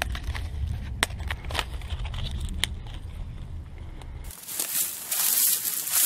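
Dry reedmace seed heads and stems being picked and handled, giving scattered sharp crackles and snaps over a low rumble. About four seconds in, this gives way to a steady rushing hiss.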